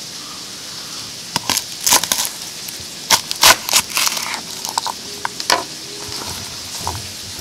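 A kitchen knife crunching through a whole garlic bulb on a wooden cutting board. Three short spells of sharp crunching and cracking come from about a second and a half in, the loudest around the middle, over a steady background hiss.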